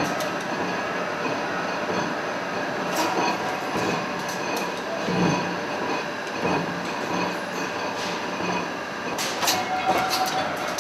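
Steady industrial din of a forge furnace and shop machinery, with scattered sharp metallic clicks and clanks, several close together near the end.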